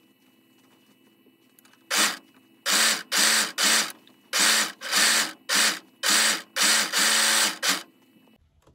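Serger (overlock machine) stitching in about ten short spurts starting about two seconds in, stopping and starting as the edge of the curved cap is guided around, overlocking the satin lining to the outer fabric.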